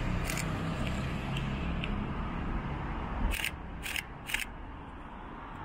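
Camera shutter firing three times in quick succession, about half a second apart, a little past halfway through, over a steady low rumble of road traffic.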